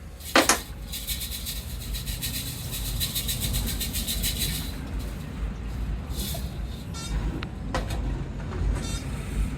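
Hammer drill running for about four seconds with a rapid, even hammering and a high whine, over a steady low rumble. A short knock comes just before it starts.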